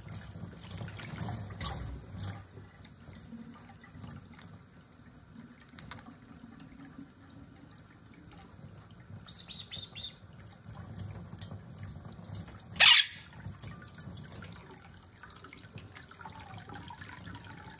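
Quaker parrot bathing in a shallow dish under a trickling kitchen faucet: steady running water, with splashing from its wings that is strongest in the first couple of seconds. A few soft chirps come about halfway through, and one short, sharp, loud sound a little before the end.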